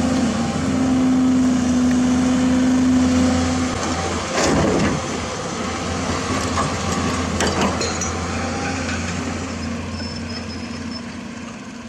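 Motor of a radio-controlled model vehicle running with a steady hum, with two brief clattering bursts midway; it fades down near the end.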